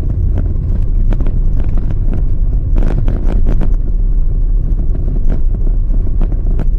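Car driving on a rough road, heard from inside: a steady low rumble of engine and tyres, broken by frequent knocks and rattles as the car jolts over bumps, with a cluster of them about three seconds in.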